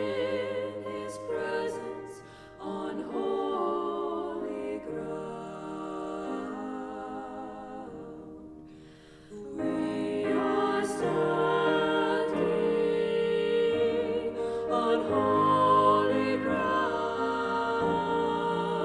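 Three women singing a slow worship song in harmony, holding notes with vibrato, with piano accompaniment. The music thins to a brief lull about eight seconds in, then comes back fuller and louder.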